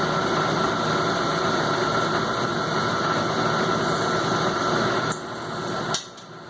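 An old Logan metal lathe running steadily with a constant whine, dropping in level about five seconds in and quietening further after a click near the end as it is switched off and winds down.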